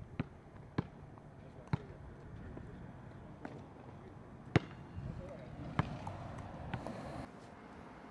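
A series of sharp knocks or thumps at uneven spacing, roughly one a second, over a low background murmur.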